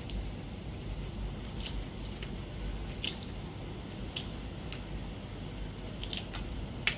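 Cooked prawn being peeled by hand: the shell crackles and snaps in a string of short, sharp clicks, loudest about three seconds in and again near the end.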